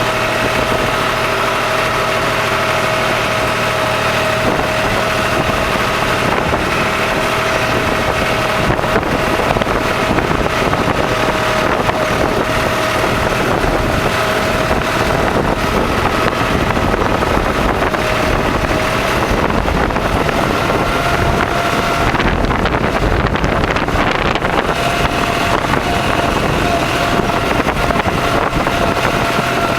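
Tractor engine running steadily, towing a fallen tree on a chain; its pitch lifts a little about twenty seconds in.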